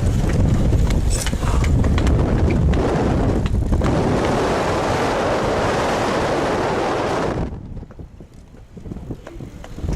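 Strong gale-force wind buffeting the camera's microphone: a loud, rough rumble, then a hissing gust that cuts off suddenly about seven and a half seconds in, leaving a quieter stretch of light ticks.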